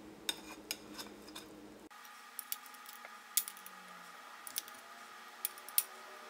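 Metal slotted spoon tapping and scraping against a ceramic bowl as cooked rice is pressed and packed into it: light, irregular clicks.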